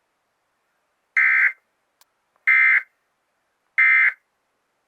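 Emergency Alert System end-of-message signal: three short, identical bursts of harsh, buzzy SAME data tones about a second and a half apart, marking the end of the test alert.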